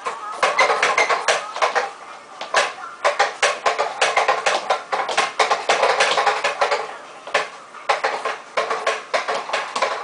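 Plastic baby push walker rattling and clattering as it is pushed along a wooden floor, in runs of rapid clicks with short pauses between them.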